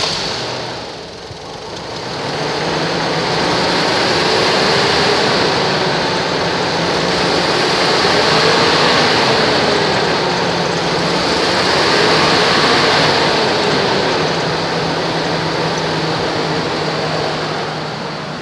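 2003 Chevrolet Trailblazer's Vortec engine idling steadily just after being started, with a faint whine that drifts gently up and down in pitch.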